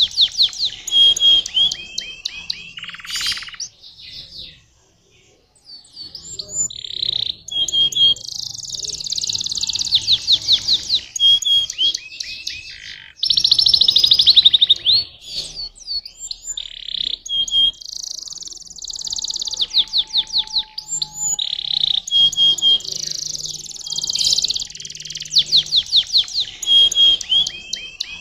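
Domestic canary singing: phrases of rapid high trills, fast repeated chirps and short glides, with a break of about two seconds roughly four seconds in.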